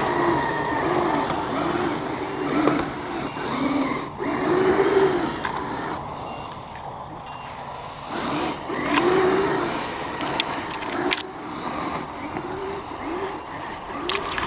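Electric motors and gear drives of radio-controlled crawler trucks whining in short bursts as they are driven, the pitch rising and falling with each burst of throttle. A few sharp clicks come late on.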